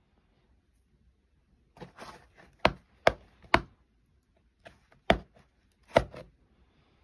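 A series of sharp knocks: three in quick succession about two and a half seconds in, then two more a little apart near the end, with fainter knocks and scuffing between them.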